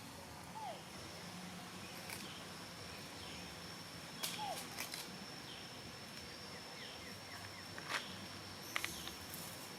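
Outdoor ambience with a steady high thin whine, like an insect. Two short falling calls come about half a second and four and a half seconds in, and sharp clicks and taps are scattered through it.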